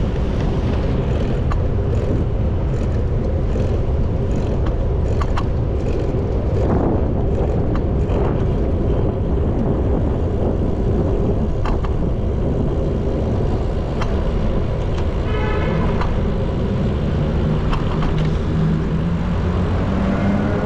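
Steady rush of wind and road noise while riding a bicycle through city traffic, with scattered clicks. A short horn-like tone sounds about fifteen seconds in, and a motor vehicle's engine rises in pitch near the end.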